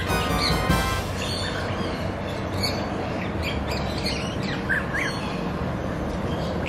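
Birds calling in a netted aviary: a few harsh squawks in the first second, then scattered short chirps over a steady low background noise.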